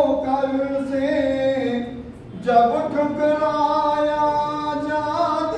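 A man singing a Hindi devotional bhajan in long, drawn-out notes that step between pitches, with a short gap about two seconds in.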